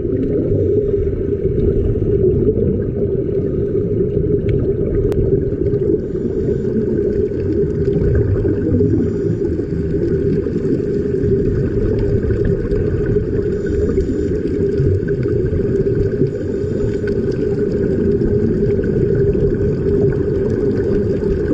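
Underwater sound picked up by a submerged camera: a steady, loud low rumble with a constant drone, with air bubbling out of the helmet divers' air-fed helmets.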